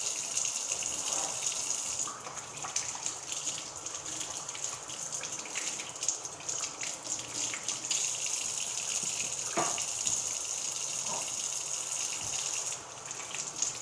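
Kitchen tap running steadily while raw pork chops are rinsed under it. The stream drops a little about two seconds in, and there are two light knocks about two-thirds of the way through.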